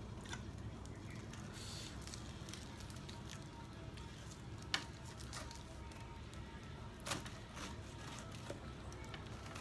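Knife cutting into a whole pineapple: faint crackling scrapes with a few soft clicks, the sharpest about halfway through, over a low steady hum.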